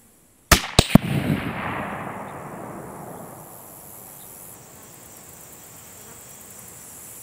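A single shot from a rifle chambered in 7mm Remington Magnum about half a second in, with two more sharp cracks right after it, then a long rolling echo that fades over a few seconds.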